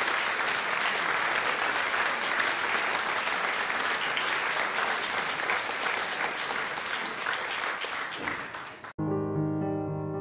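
Applause from many hands, a dense steady clatter of claps that cuts off abruptly about nine seconds in. Soft piano music starts right after it.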